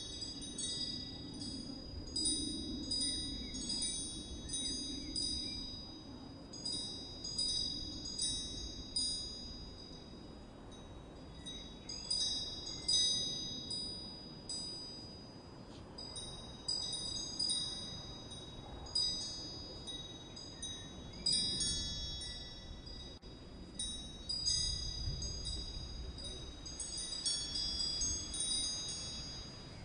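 Wind chimes ringing at irregular moments, with high, overlapping tones over a low rumble.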